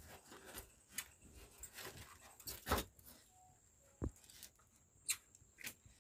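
Faint, scattered scrapes and clicks of a knife and rubber-gloved hand working at a papery hornet nest comb, the loudest scrape a little under three seconds in and a sharp click about four seconds in.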